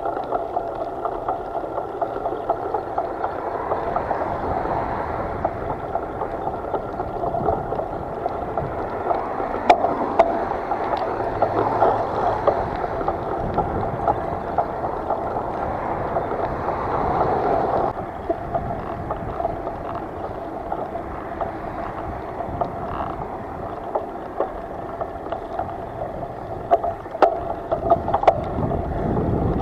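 Steady rushing, gurgling water noise, with a few sharp knocks.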